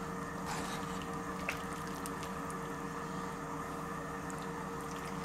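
A ladle scooping thick stew out of a cast-iron Dutch oven, with soft wet squishing and a couple of faint clicks early on, over a steady background hum.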